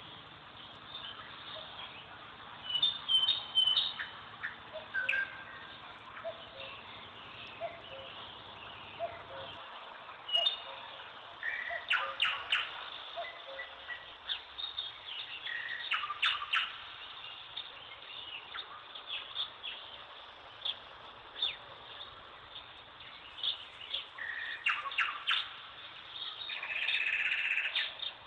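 Small birds chirping and calling in short, repeated phrases over a steady hiss. A low hum underneath stops about ten seconds in.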